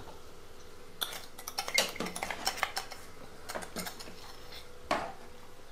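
Metal spoon clinking and scraping against the side of an aluminium pot while stirring chicken curry, in quick irregular knocks starting about a second in, with a louder knock near the end.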